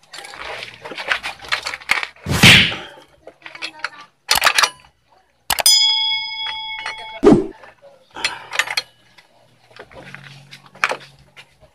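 Metal tools clattering and clanking against a GY6 125 scooter's clutch and transmission parts during a clutch removal, with a loud clank about two and a half seconds in. Midway there is a click followed by a ringing bell chime, the sound effect of a subscribe-button animation.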